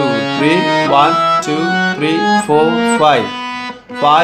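Harmonium playing the B major scale note by note. Its reeds sound steady tones that step to the next note about every half second.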